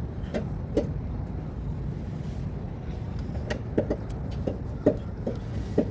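Car's scissor jack being cranked up by hand with its crank rod: sharp metal clicks, two early and then a loose rhythm of about two to three a second from about halfway in, over a steady low vehicle rumble.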